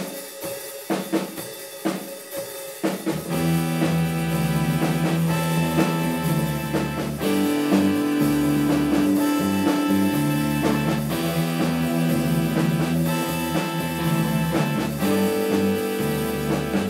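Live rock band playing an instrumental opening: separate drum hits for the first few seconds, then electric guitars, bass guitar and drum kit come in together about three seconds in and play on steadily.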